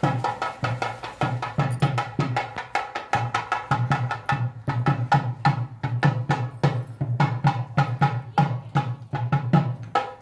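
Double-headed barrel drum played in a fast, driving rhythm, about five sharp strokes a second over a steady pulse of deeper bass strokes; the drumming stops near the end.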